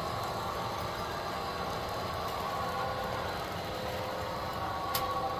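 Model diesel passenger train running along the track: a steady mechanical hum and rumble, with a single sharp click about five seconds in.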